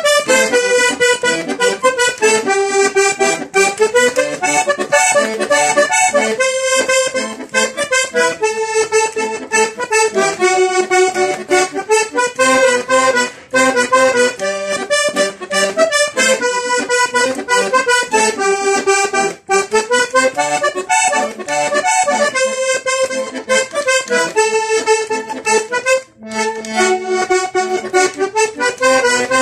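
Three-row diatonic button accordion playing the interlude of a vallenato tune: a quick, continuous run of melody notes over bass buttons, with two brief breaks in the last third.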